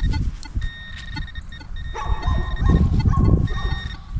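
Metal detector tones over a target: a high tone that cuts in and out several times, with a few shorter lower tones between. Low rumbling and knocking noise from handling and digging runs underneath.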